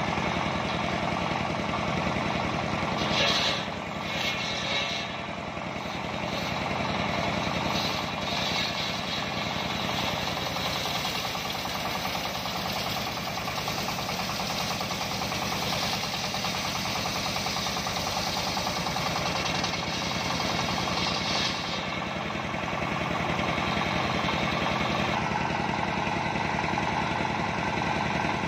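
Single-cylinder stationary diesel engine running steadily, belt-driving a large circular saw blade. From a few seconds in until about three quarters of the way through, the blade rips lengthwise through a mahogany log, adding a high hiss over the engine note.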